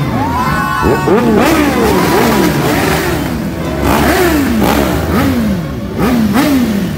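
Motorcycle engines revved over and over in short blips, the pitch climbing and dropping back one or two times a second and overlapping, over the constant rumble of many idling and rolling scooters.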